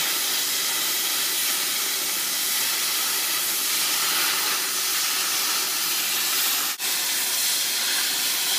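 Oxy-acetylene cutting torch hissing steadily as its cutting-oxygen jet burns through 10 mm steel plate. The hiss breaks off for an instant about seven seconds in.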